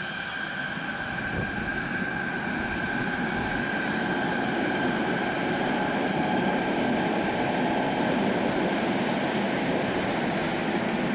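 Fukuoka City Subway Nanakuma Line linear-motor train pulling out of an underground station, its running rumble building steadily as it accelerates along the platform. A steady high tone fades out over the first few seconds.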